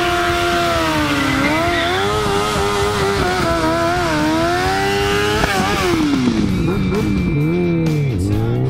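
Sportbike engine held at high revs during a rear-tyre burnout, its pitch wavering over the hiss of the spinning tyre. About six seconds in the revs drop and the tyre hiss fades, then the revs climb again near the end.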